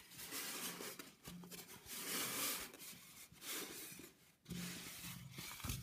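Knitted wool hat rubbing and rustling against a styrofoam mannequin head as hands pull it down and smooth it into place, in several short spurts.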